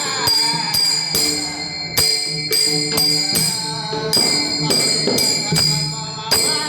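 Devotional bhajan music: small metal hand cymbals struck about two or three times a second, each stroke ringing on, over sustained low tones from the accompaniment.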